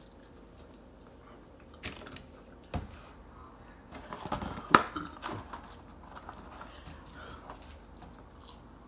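Chicken nuggets being chewed close to the microphone, with scattered sharp clicks and knocks. The busiest stretch comes around the middle, with one loud click near its peak.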